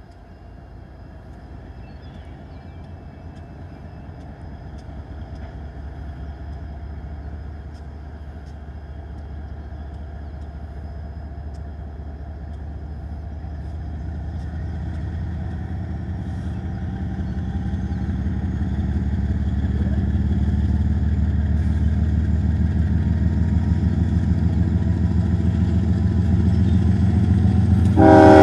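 Union Pacific diesel locomotives leading a double-stack container train approach, and their low engine rumble grows steadily louder. The locomotive's air horn blasts at the very end.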